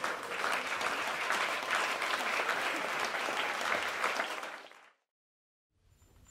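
Audience applauding, a dense patter of many hands clapping that fades out about four and a half seconds in. A moment of complete silence follows, then faint room sound.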